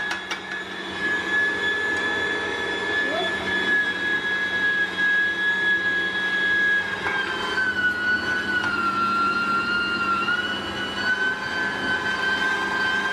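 Electric meat grinder's motor running with a steady whine while raw meat is fed in and minced. The whine sags slightly in pitch for a couple of seconds past the middle, then recovers.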